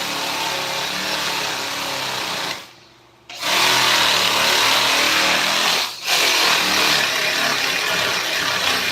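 Handheld power tool running against wood, a steady noisy cutting sound. It stops for under a second about two and a half seconds in, then starts again louder. It dips briefly again around six seconds in.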